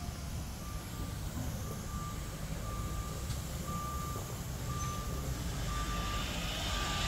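A vehicle's reversing alarm beeping about once a second on one steady tone, over a low rumble, with a hiss building near the end.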